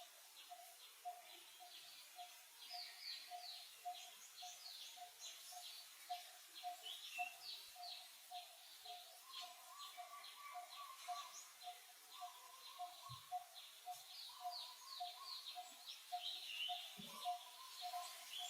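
Faint outdoor ambience of birds chirping in quick, short falling notes, over a steady lower note that pulses about twice a second.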